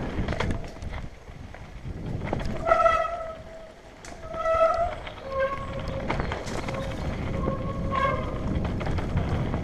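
Mountain bike descending a rocky dirt trail: the tyres rumble and crunch over the ground, with knocks and rattles from the bike over rocks and roots. Two short pitched squeals come about three and four and a half seconds in, then a fainter steady squeal that lasts about three seconds.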